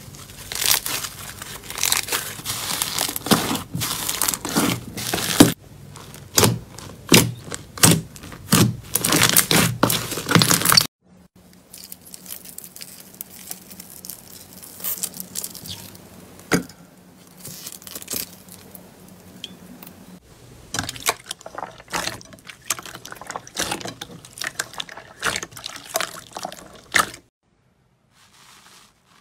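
Bubbly slime being stretched and pulled apart by hand, a dense crackle of popping air bubbles. After a cut about 11 seconds in, foam-bead slime is peeled and squeezed, with quieter, scattered crackles and crunches. Near silence for the last two seconds.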